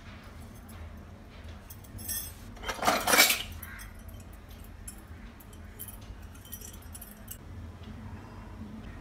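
Small brass miniature kitchen vessels clinking as they are handled and lifted out of a box of brass pieces, with one louder metallic clatter about three seconds in.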